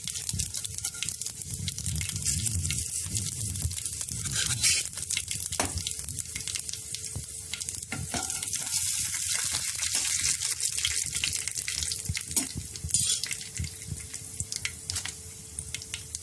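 Mustard seeds, urad dal and chana dal sizzling in hot oil in a kadai, a steady hiss with fine crackling and a few sharper pops. A slotted spatula stirs them in the pan for a while.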